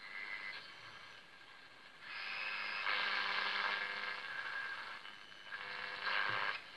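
Pye R33 valve radio being tuned between stations: hiss of static from its loudspeaker that swells and fades as the dial moves, with faint steady tones under it and no station coming through clearly.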